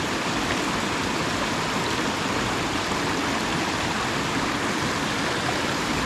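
Steady rush of river water pouring and splashing over a line of rocks in a shallow riffle.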